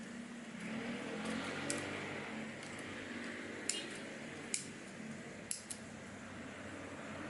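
Several light, sharp clicks of a toy airsoft pistol being handled, over a steady background hiss.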